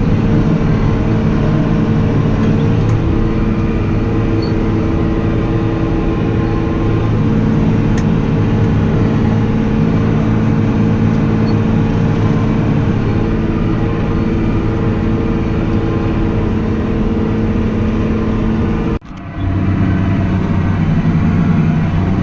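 Tractor engine running steadily at working speed, its drone even throughout, with a split-second dropout about nineteen seconds in.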